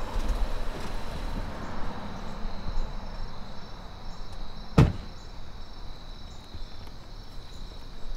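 SUV's engine and tyres fading as it pulls up and stops, then a car door shutting with one sharp thud about five seconds in, over a steady high drone of insects.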